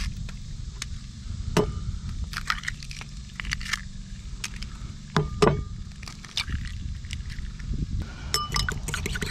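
Eggs cracked one after another on the rim of a bowl and dropped in: a few sharp clinks, the loudest about one and a half seconds and about five seconds in.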